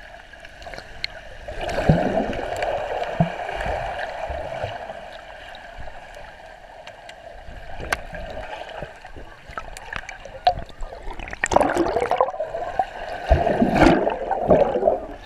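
Muffled underwater sound of swimming-pool water moving around a submerged action camera, with gurgling. It grows louder and busier near the end as bubbles stream past the camera close to the surface.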